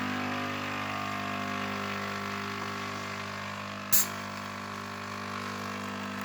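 Dolce Gusto capsule coffee machine's pump running steadily as it brews, a buzzing hum, with one sharp click about four seconds in.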